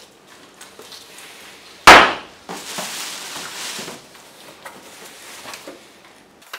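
A single loud, sharp knock about two seconds in, followed by a second or so of rustling and a few faint light knocks, as the unboxed items and box are handled.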